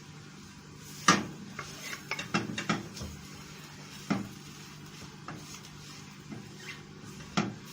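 Spoon stirring flour into mushrooms in a frying pan, clinking and knocking against the pan a dozen or so times at an uneven pace, the loudest knock about a second in, over a steady low hum.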